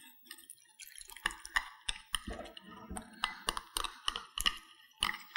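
Metal spoon stirring a wet flour-and-water batter in a glass bowl, clicking against the glass about three times a second with soft wet squelching.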